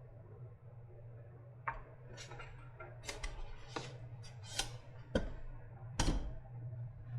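Irregular sharp clicks and knocks of hard plastic and tools as a battery pack casing is worked apart by hand, starting a little way in, with a few louder snaps.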